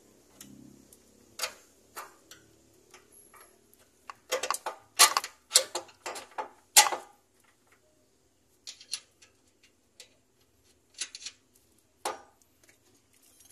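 Sharp metallic clicks and knocks of a speedometer drive gear being worked by hand into a Proton Persona's manual gearbox casing, with a quick cluster of the loudest ones about four to seven seconds in and a few scattered clicks after.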